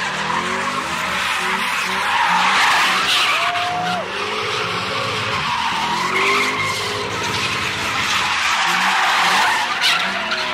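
Car tyres screeching as a sedan spins donuts, with the engine revving hard, its pitch rising and falling throughout. A sharper squeal rises and falls about three and a half seconds in.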